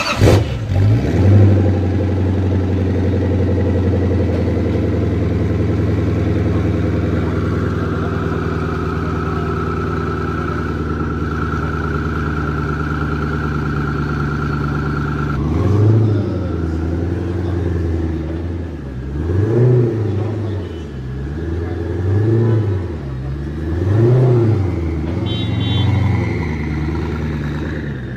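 Koenigsegg Agera's twin-turbo V8, just after starting: a rev about a second in, then a steady fast idle for about fifteen seconds. The idle then drops and the engine is blipped five times, each rev rising and falling back.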